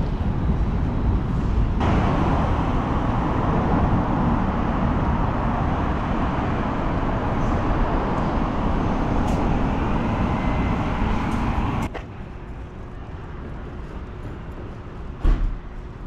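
City street traffic: cars and a bus running along a busy road, a steady traffic noise. The noise jumps up about two seconds in and drops sharply about twelve seconds in, and there is a short low thump near the end.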